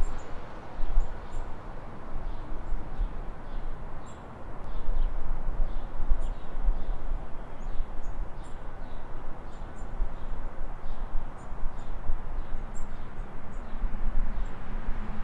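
Outdoor ambience: small birds chirping again and again in short high notes over a steady, uneven low rumble.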